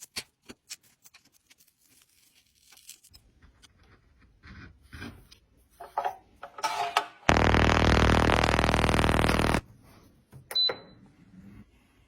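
Light clicks and taps of handling, then a small electric motor runs steadily for about two seconds and stops, followed by a sharp click.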